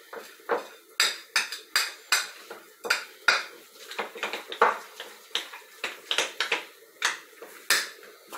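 A spoon clattering against the side of a mixing bowl, about two or three knocks a second, as stiff jiló-and-flour fritter dough is pounded and mixed.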